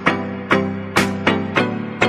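Background music with a steady beat, about two strong beats a second, and sustained pitched notes.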